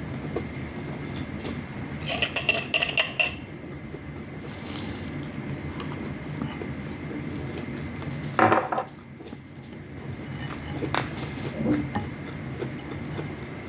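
Cutlery clinking and scraping against a plate while eating, with a quick run of ringing clinks about two seconds in and a single louder knock about eight seconds in, over a steady low background hum.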